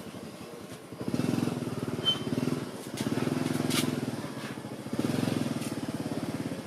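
A small engine running with a fast, even pulse, surging three times for about a second and a half each. A few sharp clicks and one brief high chirp sound over it.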